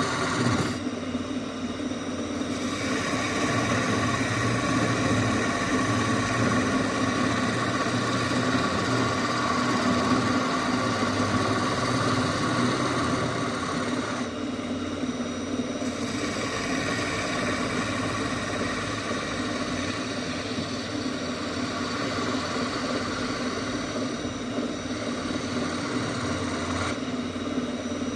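Wood lathe motor running steadily while a turning tool cuts the spinning workpiece; the cutting noise drops out briefly three times, about a second in, around the middle, and near the end, as the tool leaves the wood.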